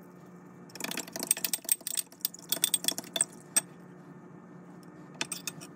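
A metal fork clinking rapidly against a glass bowl while whisking an egg marinade, for about three seconds, with a few more clinks near the end.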